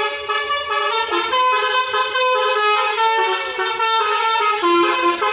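A bus's basuri musical horn playing a quick tune, note following note several times a second, with several tones sounding together.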